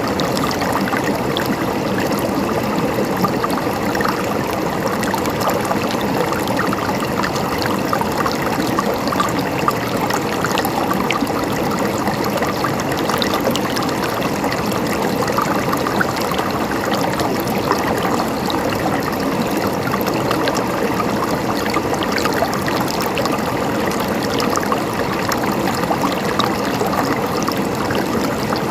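River water flowing steadily over rocks, a continuous rushing with many small splashes and trickles.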